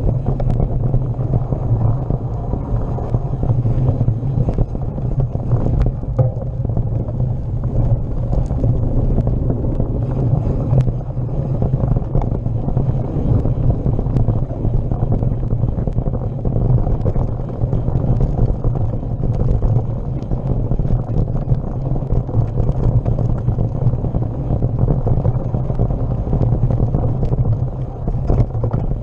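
Wind buffeting the camera microphone while riding fast along a dirt singletrack: a loud, steady low rumble with small scattered rattles and knocks from the bumps in the trail.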